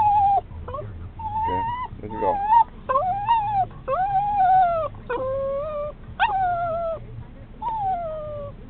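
A small dog whining excitedly, a string of about eight high whines, each up to a second long, most sliding down in pitch at the end.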